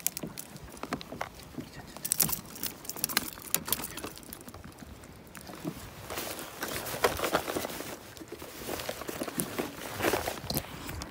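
Irregular clicks, taps and rustling of hands and fishing pliers working a jig free from a landed inada (young yellowtail) in a landing net, with several sharper knocks.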